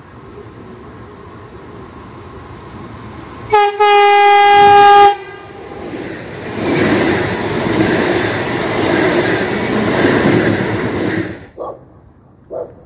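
ETR521 double-deck electric train sounding its horn, a short blip and then one long held note, as it approaches. It then passes close by at speed with a loud rush of wheel and air noise that cuts off suddenly. A dog barks twice near the end.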